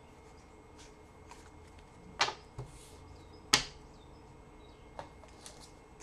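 Trading cards being handled on a table: a few light ticks and two sharp clicks, the second the louder, about a second and a half apart.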